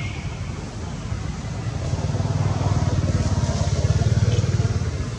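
A motor vehicle engine running, a low pulsing rumble that grows louder from about two seconds in, like a vehicle passing close by.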